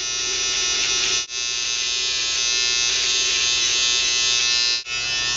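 Electric hair clippers buzzing steadily as they shave the hair short beside the ear, the buzz cutting out briefly twice.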